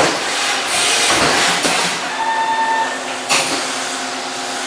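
Brother TC-32BNFT CNC tapping center running inside its enclosure as its tilting rotary table repositions the workpiece: a steady machine hum with several hissing surges and a brief steady whine about halfway through.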